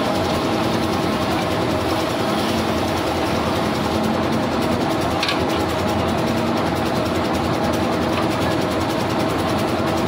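A concrete mixer's engine running with a steady drone. A shovel scrapes briefly in loose crushed stone about five seconds in.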